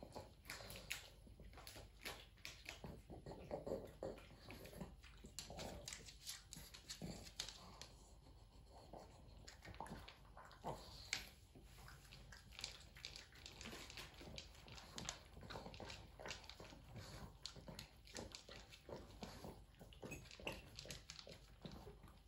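A pug eating from a bowl on the floor: faint, irregular clicks and crunches of the food and the bowl.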